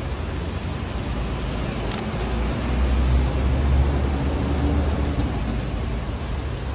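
Outdoor city ambience: a steady hiss with a low rumble that swells about two and a half seconds in and fades again by about five seconds.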